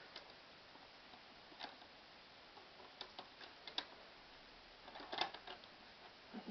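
Faint, irregular clicks and ticks from a wooden paper-briquette press as its jack is turned to squeeze water out of soaked newspaper, with a quicker run of clicks about three seconds in and a louder cluster near the end.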